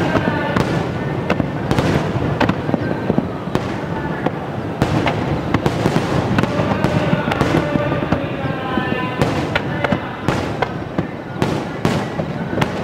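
Aerial firework shells bursting in a dense barrage: many sharp bangs over a continuous crackle and rumble.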